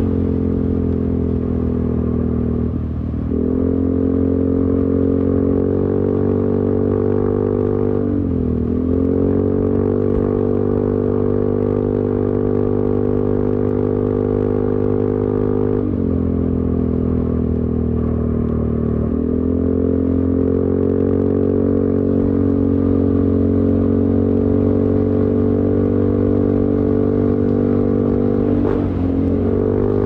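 Yamaha XMAX 250 scooter's single-cylinder engine with an aftermarket Smoke long silencer running steadily. Several times its pitch dips briefly and climbs back as the throttle is eased off and reopened.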